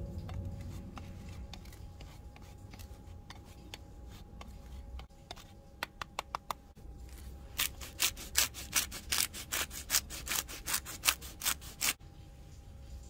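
Parmigiano cheese rubbed on a metal box grater, a run of faint short scraping strokes, followed by a pepper mill being ground: a fast, even run of loud clicks, about four or five a second, lasting around four seconds before stopping.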